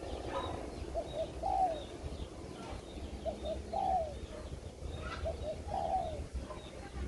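Spotted dove cooing a repeated phrase, two short coos and then a longer falling one, three times about two seconds apart. Faint chirps of small birds sound in the background.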